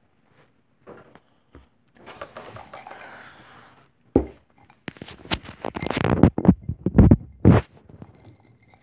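Handling noise: soft rustling, a sharp click about four seconds in, then loud irregular rubbing and knocks as the phone that is recording is picked up and moved.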